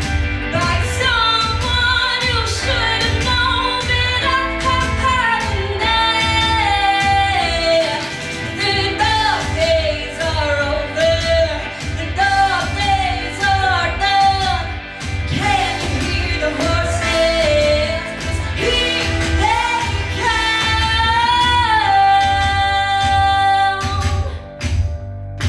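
Pop-rock song with a female lead vocal singing long, bending, held notes over a steady drum and bass beat.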